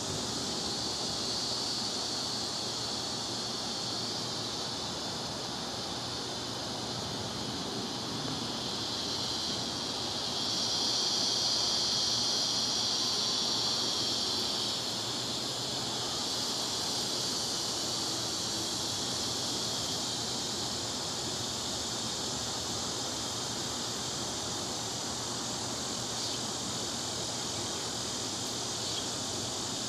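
A steady high insect drone, swelling louder for a few seconds near the middle, over an even background hiss.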